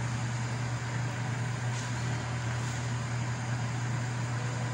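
Steady low droning hum with an even hiss over it, unchanging throughout.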